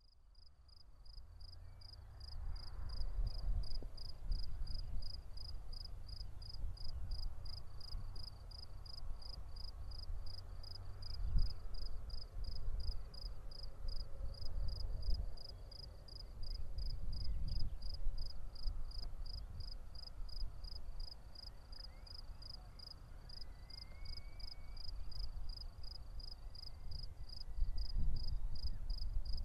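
A cricket chirping steadily, about three high chirps a second, over a low rumble that swells and fades.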